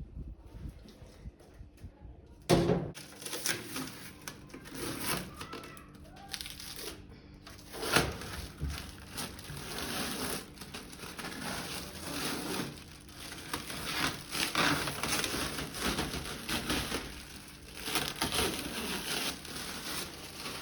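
Irregular crinkling and rustling of plastic packaging being handled and pulled off, with a sharp knock about two and a half seconds in and another about eight seconds in.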